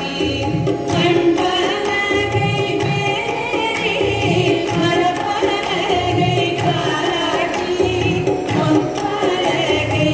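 Carnatic-style devotional song: a singing voice over a steady hand-drum beat, about one stroke every 0.8 seconds.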